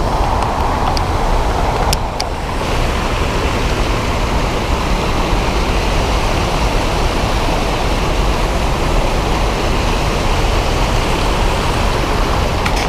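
Steady, loud rushing of a waterfall up close, with heavy spray and a deep rumble on the microphone.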